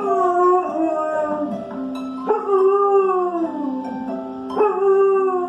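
Dog howling along with an alarm clock's melody: three long howls, each sliding down in pitch, one every two seconds or so, over the steady notes of the tune.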